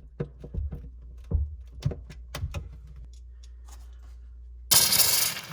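A series of knocks and clicks from a two-stage under-sink water filter being handled and mounted against a cabinet. Near the end the kitchen faucet is turned on and water rushes out loudly.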